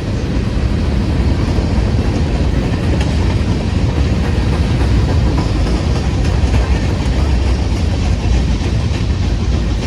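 Freight train rolling past at close range: a loud, steady rumble of cars on the rails.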